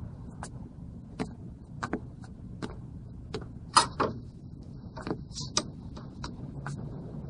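Shoe footsteps on a hard floor at an even walking pace, then a louder double clack about four seconds in and a run of irregular taps and clicks.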